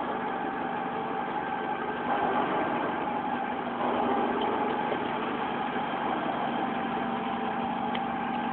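Mortar mixer and mortar plastering machine running together with a steady mechanical hum.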